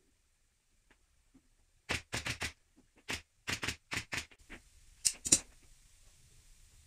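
Shears snipping black lining fabric, with the fabric being handled: a quick run of short, crisp snips and crackles starting about two seconds in and lasting about three and a half seconds, the sharpest near the end of the run.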